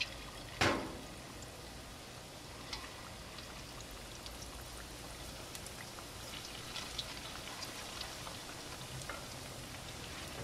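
Tempura-battered mangrove snapper fillets frying in hot oil in a steel pan: a steady sizzle with scattered small pops and crackles. One sharp, louder crackle comes just under a second in.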